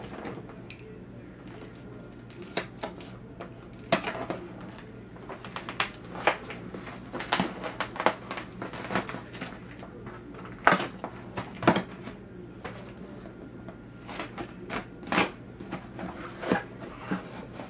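Packing tape being peeled and torn off a cardboard shipping box and the flaps pulled open: a string of irregular rips, crackles and scrapes of tape on cardboard.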